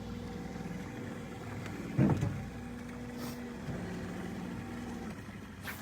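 A small boat motor running at low speed with a steady hum that shifts slightly in pitch, and one sharp knock about two seconds in.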